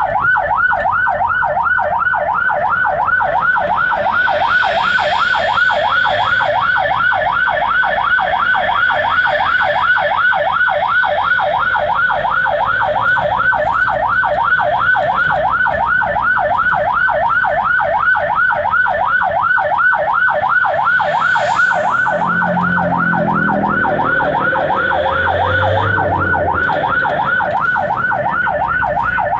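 Ambulance siren in fast yelp mode, rising and falling about three to four times a second, heard from inside the ambulance's cab. About three quarters of the way through, a deeper sound glides upward beneath it.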